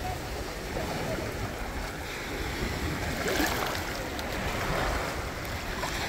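Sea surf washing in over the shallows of a stony beach, foam rushing up and draining back in gentle swells, with wind buffeting the microphone.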